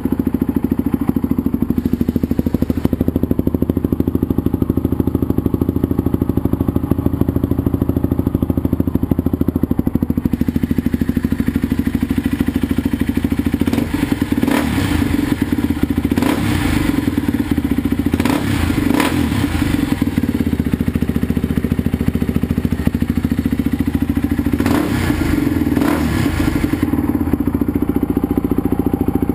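2007 Polaris Predator 500 ATV's single-cylinder four-stroke engine with an HMF performance exhaust, idling steadily just after starting and warming up, with several short throttle blips in the second half. The engine has a freshly rebuilt top end (new rings, valve guides and seals, timing chain) and is not yet broken in.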